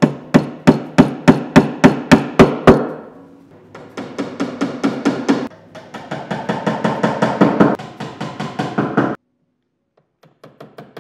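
A hammer taps the end of a screwdriver, driving the pins of plastic sink-mounting clips fully home. First comes a run of about ten sharp blows, about three a second, then two longer runs of quicker taps.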